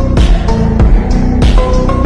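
Slowed-and-reverb phonk track: heavy deep bass under a steady beat, with short repeated high notes stepping in pitch.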